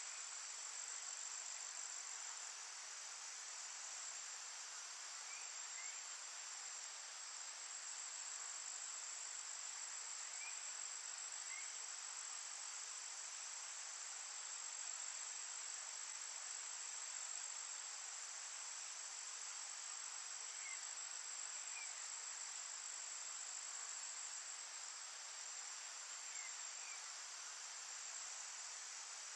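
Steady, high-pitched insect chorus trilling continuously in the woods over a soft hiss. A faint pair of short rising chirps comes now and then.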